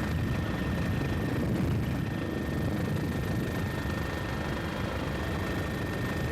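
Steady low engine rumble with a faint, constant high whine above it, unchanging throughout.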